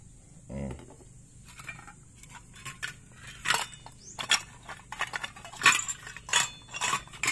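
Metal carburettor body and parts clinking and scraping against a stainless steel bowl as they are handled in thinner: a run of sharp, irregular clinks, getting louder and more frequent in the second half.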